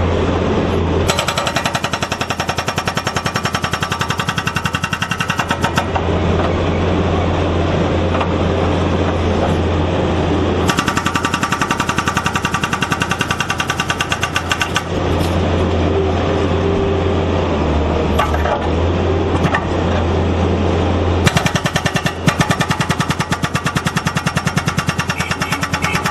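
Hydraulic breaker on a Fuwei skid steer loader hammering rapidly and continuously, over the steady drone of the loader's engine. The hammering rings out louder and sharper in three stretches: about a second in, around the middle, and again near the end.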